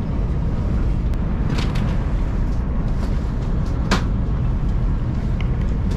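Steady low rumble and hiss of a Chinese high-speed bullet train running at around 230 km/h, heard from inside the carriage, with a few light clicks, the sharpest about four seconds in.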